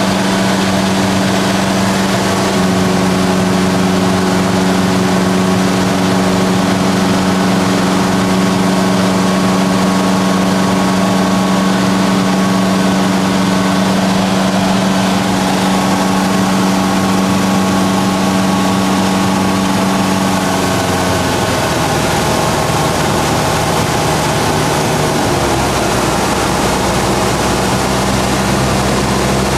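Light aircraft's piston engine and propeller droning steadily over a constant rush of airflow. About two-thirds of the way through the drone drops to a lower note, a change in engine power.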